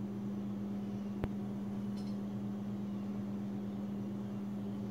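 Steady low mechanical hum, with a single sharp click a little over a second in.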